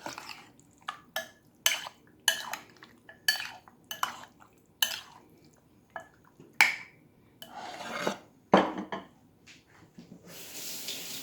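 Kitchen dishes and utensils clinking and knocking, a run of sharp clinks about every half second at first, then a few scattered ones. A short hiss comes near the end.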